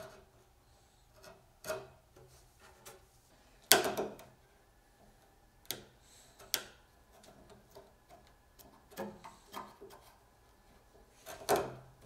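Narrow chisel paring the end of a wooden bead into a miter: a series of short, irregular clicks as chips of wood are cut and snap away, the loudest about four seconds in.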